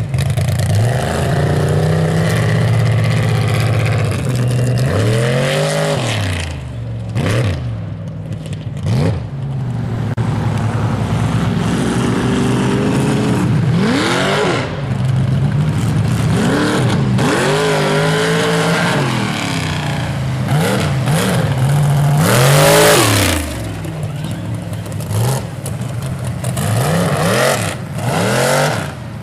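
Mega mud trucks' big engines revving hard over and over, the pitch repeatedly climbing and dropping, loudest a little past two-thirds of the way through.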